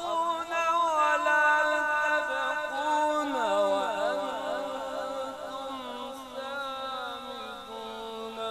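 Male Quran reciter chanting in the melodic mujawwad style, holding one long drawn-out phrase through a microphone. The note is decorated with quick wavering turns, which grow busier about three seconds in.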